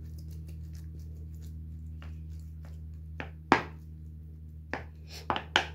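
Metal spoon clicking and scraping against a ceramic plate as it pats down thick psyllium husk halwa. A few soft clicks come first, then four sharper ones in the second half, over a steady low hum.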